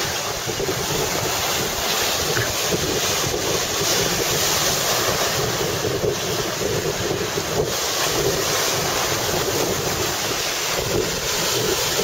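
Sea surf washing onto a rocky shore, a steady rushing noise, with wind buffeting the microphone.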